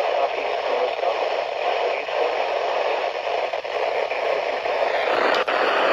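Radio static: a steady hiss of noise from a radio receiver, with a couple of sharp clicks near the end.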